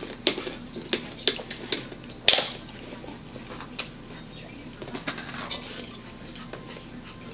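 Tableware handling at a meal: a plate and a plastic tub knocked and clicked against the table, a run of sharp clicks in the first couple of seconds with the loudest about two seconds in, then softer rustling and light knocks.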